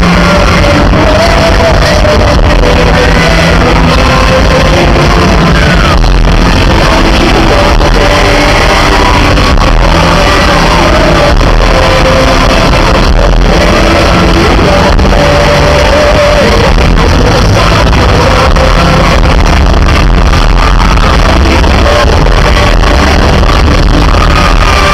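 Live pop concert music with male group vocals, heavily distorted and overloaded by a broken camera microphone.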